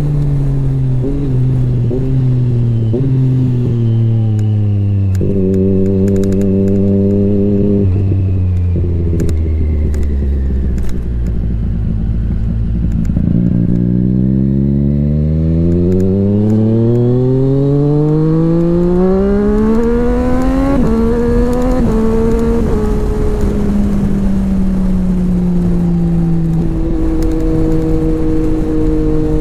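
Sport motorcycle engine under way. The revs drop in several quick steps as it slows and changes down, then hold briefly and fall further. A long steady climb in revs follows as it accelerates. Around two-thirds through the revs jump up, then ease off and settle at a steady cruise near the end.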